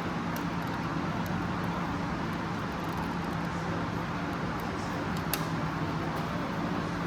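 Steady low mechanical hum of workshop background noise, with a few light clicks of tools on engine parts; the sharpest click comes about five seconds in.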